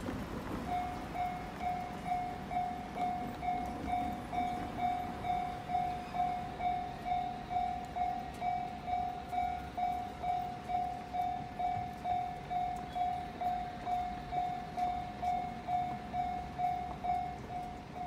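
Japanese railway level-crossing warning bell, starting just under a second in and ringing steadily at about two electronic dings a second: the signal that a train is approaching the crossing.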